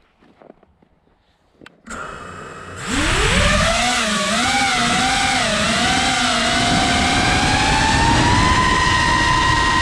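FPV quadcopter's brushless motors spinning up: a faint hum about two seconds in, then a loud whine from about a second later. The whine wavers up and down in pitch with the throttle, then climbs slowly and holds steady.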